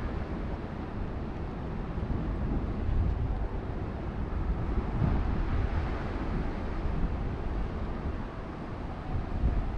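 City street traffic noise: a steady low hum of road vehicles that swells several times as vehicles pass.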